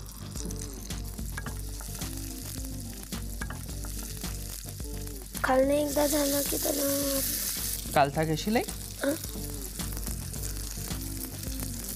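Potato-and-vegetable cheese rolls ('cheese bullets') frying in butter on a hot grill pan: a steady sizzle that grows stronger about halfway through, with a brief pitched, voice-like sound around the same time.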